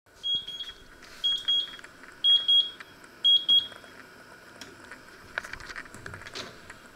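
Electric oven's timer alarm beeping in short double beeps, about one pair a second, four times: the countdown has run out to 00:00. The beeping stops as a button on the display is pressed, and a few clicks and knocks follow.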